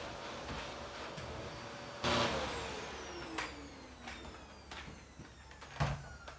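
An electric vacuum cleaner's motor running, then switched off about two seconds in, its whine falling steadily in pitch as it spins down. A few sharp knocks follow near the end.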